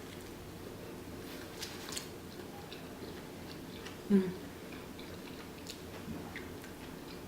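A person chewing a mouthful of deep dish pizza, with small wet mouth clicks. About four seconds in there is one brief pitched sound, louder than the rest.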